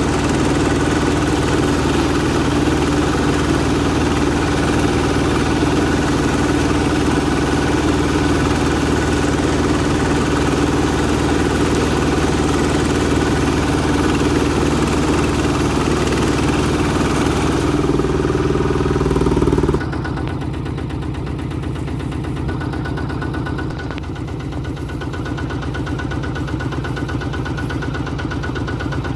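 Quick H-140R rice combine harvester running steadily under load, engine and machinery together. About two-thirds of the way through, the louder, higher part of the noise cuts off suddenly, leaving the engine running more quietly with an even tick.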